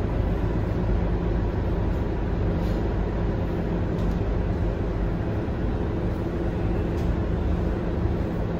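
Scania K230UB single-deck city bus under way: a steady diesel engine drone with road noise, heard from on board, and a few faint rattles.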